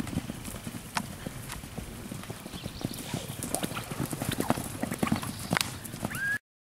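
Hoofbeats of young horses, a yearling filly and a foal, cantering loose on a sand arena: irregular, overlapping thuds and knocks. The sound cuts off suddenly near the end.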